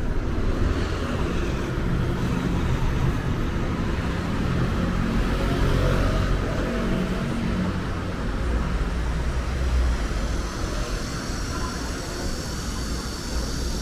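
A bus engine running with a low rumble, its pitch rising and then falling around the middle, as heavy vehicles move through a bus terminal.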